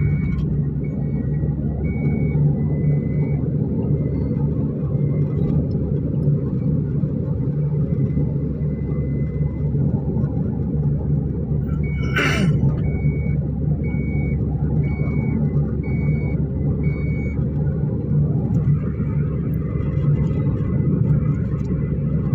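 Steady engine hum and road rumble inside a moving car's cabin. A high electronic warning beep repeats about every three-quarters of a second, stops after a few seconds and comes back for a few seconds just past the middle, where a short scratchy noise is also heard.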